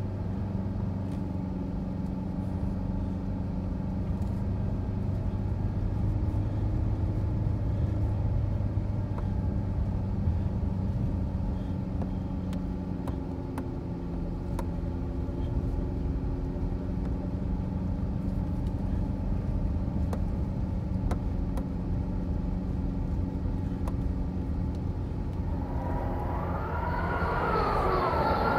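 Car driving on a snow-covered road, heard from inside the cabin: a steady engine drone with rumbling tyre noise. Near the end a high, wavering squeal comes in over it.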